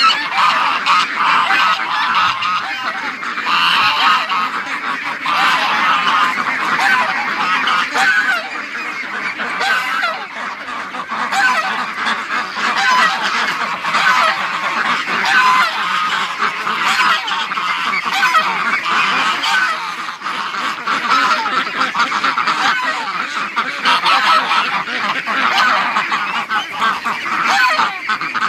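A large flock of domestic ducks and geese calling continuously, a dense, unbroken chatter of many overlapping voices.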